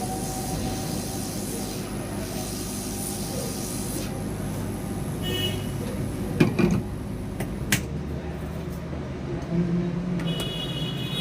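Hot air rework station blowing steadily, heating the back of a phone board to melt the solder so a new charging jack will seat. There are two sharp clicks, and after the second, near the middle, the steady noise changes.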